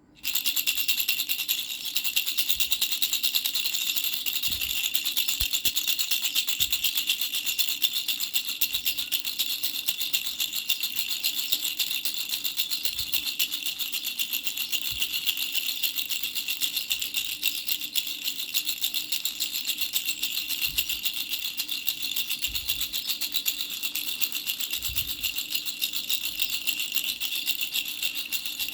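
Toy baby rattle shaken quickly and steadily, a continuous high, fast rattling.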